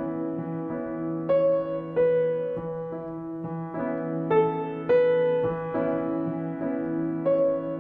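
Background piano music: a slow melody of single notes over held low notes.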